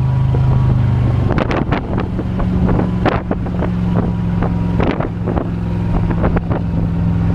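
Rinker Captiva 21-foot stern-drive boat's engine running underway, its note stepping up a little over a second in. The hull slaps irregularly on the waves, and wind buffets the microphone.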